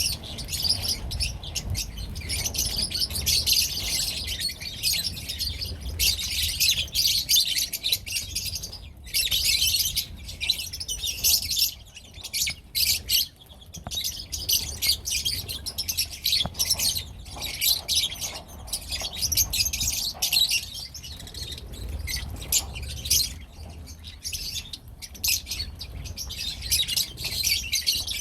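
A group of lovebirds (Agapornis) chirping and chattering without letup in shrill, rapid calls, with a couple of brief lulls, over a faint low hum.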